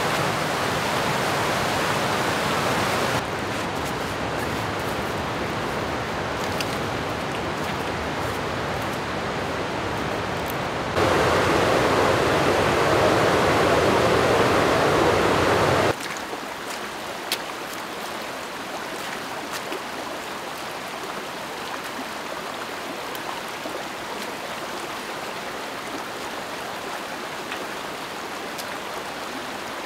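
Mountain creek rushing over boulders in white-water cascades: a steady rush of water that jumps abruptly in loudness and tone a few times. It is loudest a little before the middle, then quieter and thinner for the second half.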